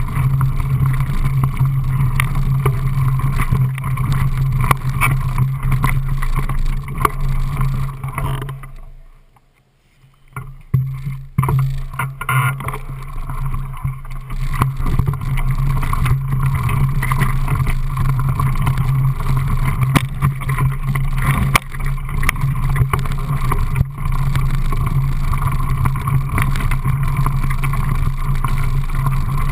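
Mountain bike rolling fast down a gravel forest trail, heard from a camera mounted on the bike: a steady rumble of tyres on loose gravel with wind on the microphone and frequent small knocks and rattles. About nine seconds in the noise fades to near silence for a second or so, then comes back.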